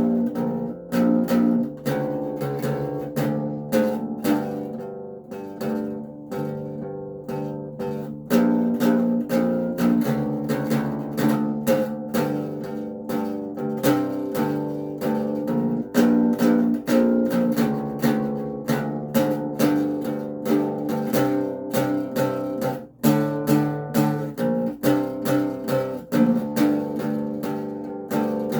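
Acoustic bass guitar played solo: a steady run of plucked notes and chords, with a brief break about 23 seconds in.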